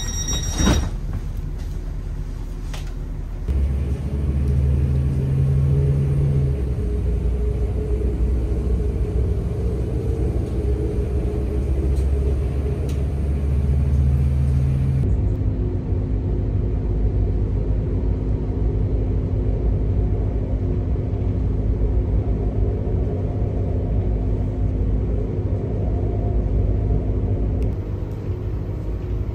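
Steady low rumble of a moving train heard from inside the passenger carriage, with a single knock just under a second in. The rumble changes abruptly about halfway through and again near the end, a steady hum joining it in the later part.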